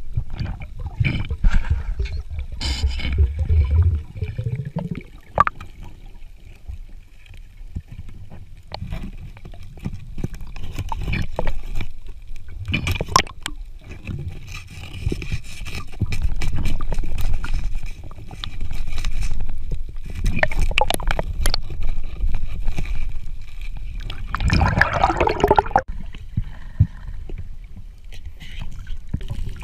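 Muffled underwater sound of water gurgling and sloshing around a diver, with irregular sharp knocks as a gloved hand works into a rock crevice after a lobster. A louder gurgling burst comes near the end.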